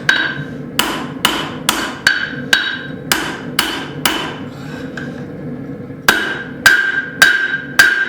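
Hand hammer striking hot steel bar stock on the anvil's sharp corner, forging a set down: steady blows about two a second with a ringing anvil tone, a short pause of about a second and a half partway through, then the blows resume.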